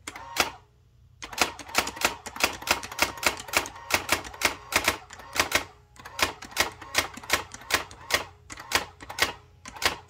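Brother GX-6750 electronic daisy wheel typewriter printing letters one at a time, each a sharp clack of the print hammer striking the wheel through the ribbon. A single strike near the start, a short pause, then an even run of about three or four strikes a second.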